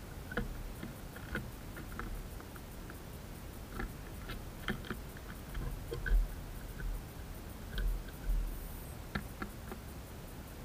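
Tits pecking and hopping at a wooden seed feeder: irregular light taps and clicks of beaks and feet on the wood and grain, with a few dull low thumps, the loudest about six seconds in.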